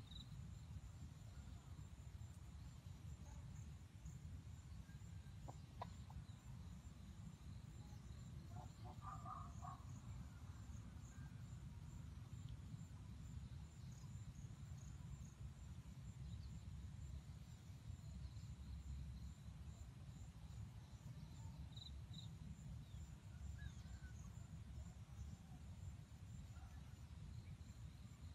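Quiet field ambience: a low steady rumble with faint high bird chirps, and a short rooster cluck about nine seconds in.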